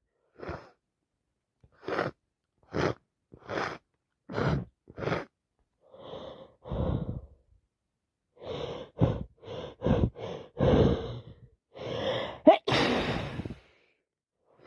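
A woman with a heavy head cold taking a series of short gasping breaths as a sneeze builds, the breaths coming faster, then one loud sneeze near the end.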